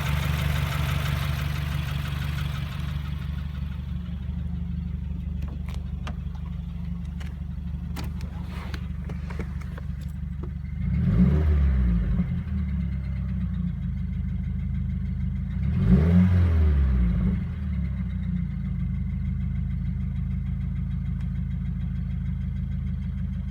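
2015 Subaru WRX's turbocharged flat-four idling steadily, revved twice briefly about eleven and sixteen seconds in, the pitch rising and falling each time.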